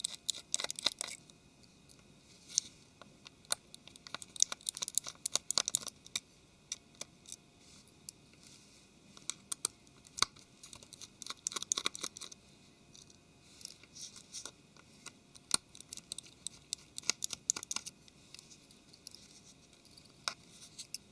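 Small precision screwdriver undoing the tiny case screws of a Samsung Galaxy S4's midframe, with fingers handling the phone: faint, irregular clicks and scratches from the bit working in the screw heads.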